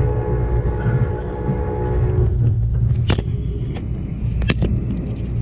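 Passenger train running with a steady low rumble, heard from inside the car. The locomotive horn sounds a steady chord for the first two seconds or so and then stops. A few sharp clicks follow near the end.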